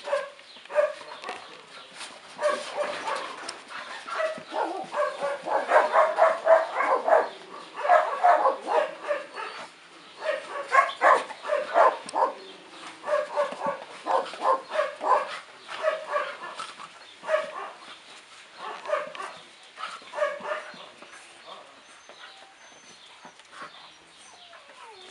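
Young dogs play-fighting, giving a quick run of short barks and yips that is thickest through the middle and thins out near the end.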